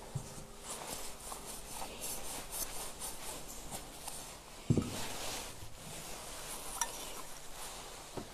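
Quiet church with soft rustling and light clinks and scrapes of small objects being handled, and one dull knock a little past halfway.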